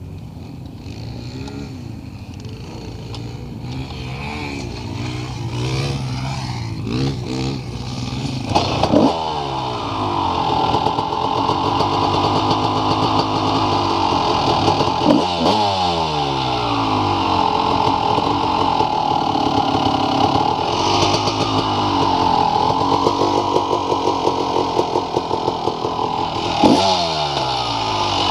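Motorcycle engine running and revving. Its pitch climbs and drops with the throttle, it gets louder about nine seconds in, and three sharp revs are each followed by a falling pitch.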